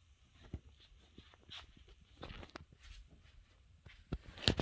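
Scattered light clicks and knocks of plastic frame strips and panel sheets being handled on an LED TV backlight panel, with a sharper pair of knocks near the end.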